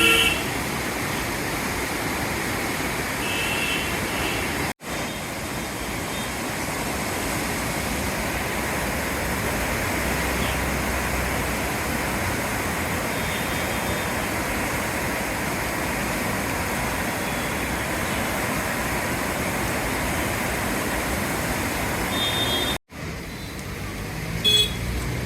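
Steady outdoor hiss of rain and road traffic, with a few short distant horn toots. The sound cuts out abruptly twice for an instant.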